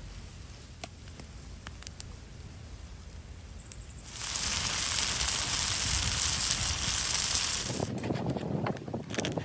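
Cooking over an outdoor wood fire: a loud, steady hiss starts suddenly about four seconds in and lasts about four seconds, followed by scattered crackles near the end.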